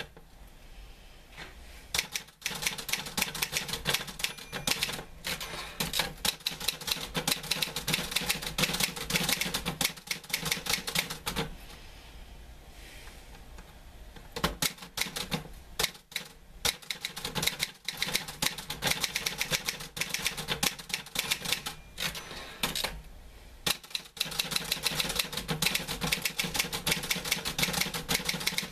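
Typewriter keys striking in fast runs of typing, broken by short pauses near the start, around the middle and a few seconds before the end.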